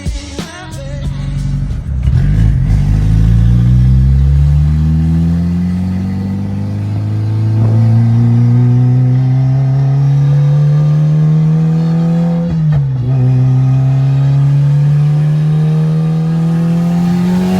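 Car engine pulling hard under load, its pitch rising steadily for about twelve seconds. It drops sharply once, as at a gear change, then climbs again until it drops near the end.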